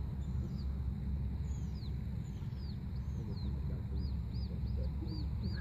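Steady low wind rumble on the microphone, with a series of faint high chirps above it: a few falling ones at first, then about two a second near the end.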